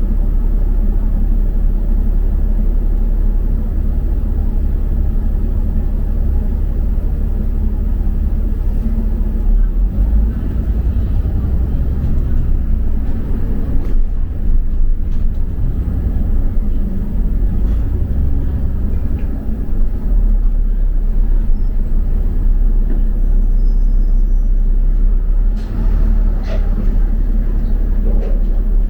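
Double-decker bus heard from inside the passenger cabin: steady low engine and road rumble as it drives along.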